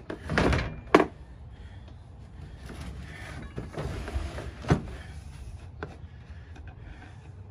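An old portable gramophone case being turned over and set down on a pickup's tailgate: rubbing and scraping against the bed, a sharp knock about a second in and another near five seconds, then a few small clicks at its metal latches.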